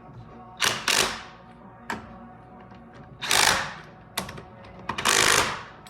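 Three short bursts of mechanical rattling, each about half a second long, with several sharp clicks between them, over a faint steady hum.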